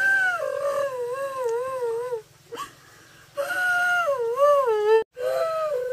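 A dog whining: long drawn-out whines that waver up and down in pitch, one stopping about two seconds in, another starting about a second later and breaking off suddenly, then a third beginning near the end.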